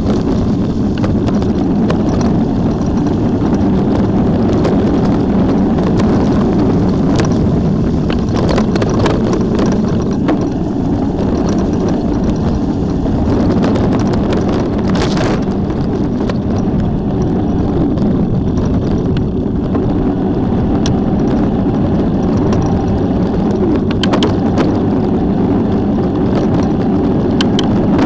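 Steady rumbling travel noise with wind on the microphone and scattered small clicks and ticks, the sound of moving along a trail.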